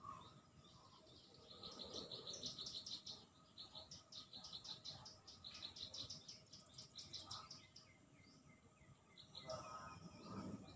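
Faint birdsong: runs of rapid, high, evenly repeated chirps, twice in the first three quarters, with a brief lower-pitched sound near the end.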